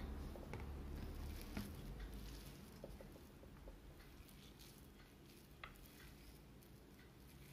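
Hands pressing and patting a soft, moist dough of grated bottle gourd and potato into patties: faint soft squishing with scattered light ticks. A low hum fades out about two and a half seconds in.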